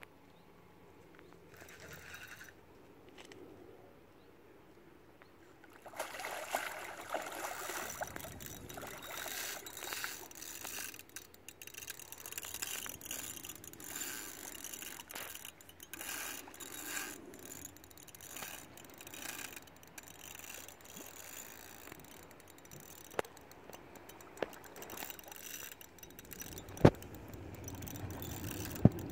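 Spinning reel and rod worked while playing a large hooked fish: after a quiet first few seconds, a steady rustle with irregular small clicks, and a few sharp knocks in the last several seconds.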